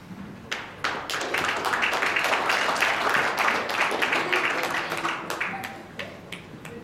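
Audience applauding. It starts about half a second in, is strongest in the middle, and dies away near the end.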